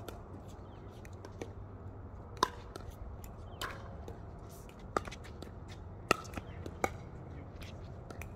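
Pickleball rally: sharp pops of paddles striking the hollow plastic ball, mixed with its bounces on the hard court. Five loud pops come about a second apart starting about two seconds in, with a few fainter ones between.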